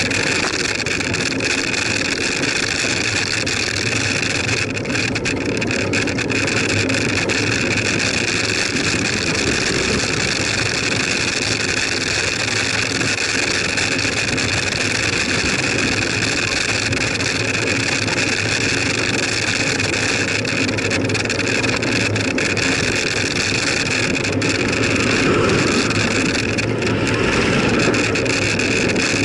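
Steady rush of wind and road noise on a bicycle-mounted camera's microphone while riding along a road, swelling slightly about 25 seconds in.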